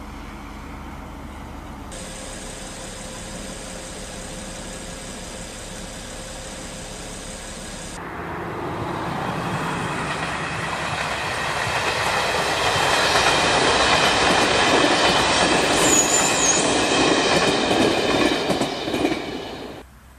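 Diesel trains: first a diesel locomotive's engine running steadily with a whine, then a diesel multiple unit approaching and passing close by, its engine and wheel clatter on the rails growing louder and then cutting off abruptly near the end.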